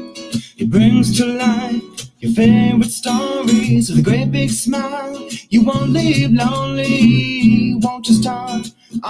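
Opening theme music: strummed acoustic guitar under a singing voice, in short phrases broken by brief pauses.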